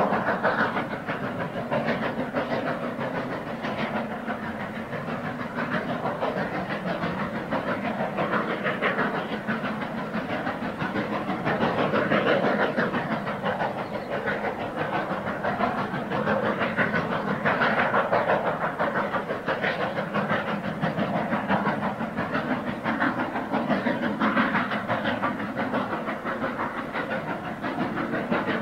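War Department 2-10-0 and LMS Black 5 4-6-0 steam locomotives double-heading a train up a 1 in 49 gradient, their exhausts beating in a steady rapid chuffing as they work hard on the climb.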